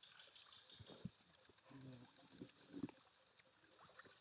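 Faint water sloshing and swishing as a person wades waist-deep through swamp water, with a few soft knocks and splashes.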